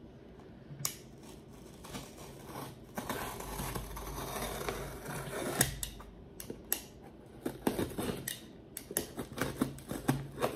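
Box cutter scraping and slicing along packing tape on a cardboard box, with a run of sharp clicks and taps from the blade and the cardboard. The tape is hard to cut.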